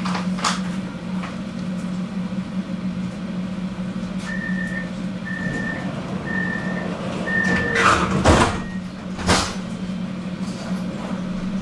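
Tram interior at a stop: a steady low hum, then four short high beeps about a second apart, the warning signal for the doors closing. Two loud knocks follow as the sliding doors shut.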